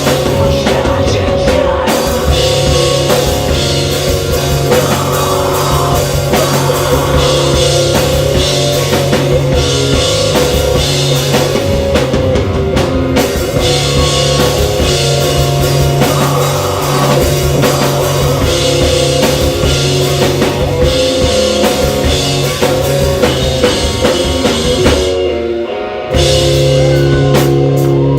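Live rock band playing: drum kit, guitars and bass going together at full volume. About 25 seconds in the sound briefly drops away, then the whole band comes back in.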